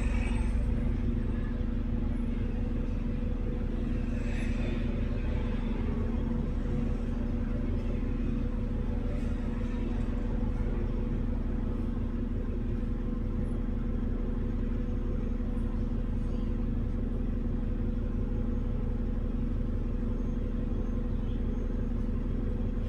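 A bus running steadily, heard from on board: an even low rumble with a constant hum.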